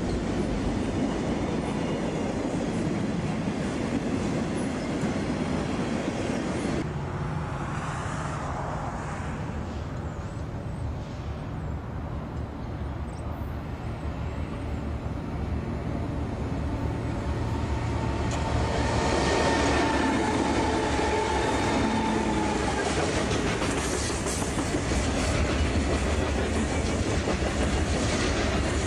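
Freight trains passing. First, freight cars roll by with steady wheel clatter. After a cut, a diesel-hauled freight comes on from a distance: its locomotive's engine grows louder about two-thirds of the way through, then a string of gondola cars rolls past clattering over the rail joints.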